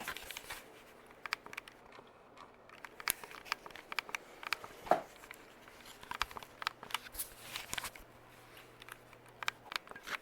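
Irregular crinkling and clicking handling noises, the loudest about halfway through, over a faint steady low hum that stops shortly before the end.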